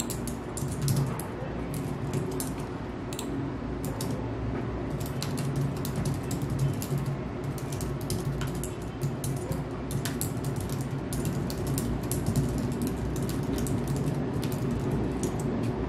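Fingers typing on a slim, low-profile computer keyboard: irregular light key clicks, sparse at first and then in quick runs.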